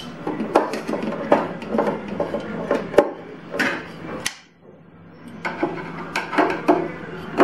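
Irregular clicks and knocks of a screwdriver and small metal parts against the metal frame of a vinyl cutting plotter, with a short pause about two-thirds of the way through.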